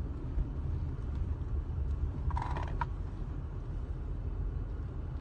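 Car's engine and road rumble heard from inside the cabin as it drives slowly through a parking lot, a steady low drone. About two seconds in comes one short, brighter sound lasting about half a second.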